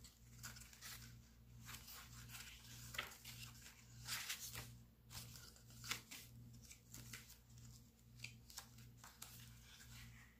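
Faint rustles and flicks of paper pages being turned by hand in a handmade junk journal, a string of short, soft strokes over a low steady hum.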